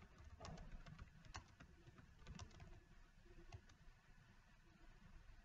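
Faint typing on a computer keyboard: irregular keystroke clicks, coming quicker in the first half and sparser later.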